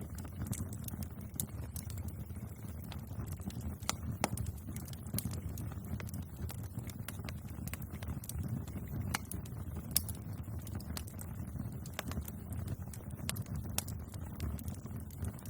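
Bonfire burning: a steady low rumble of flames with scattered sharp crackles and pops from the burning wood, one louder pop about ten seconds in.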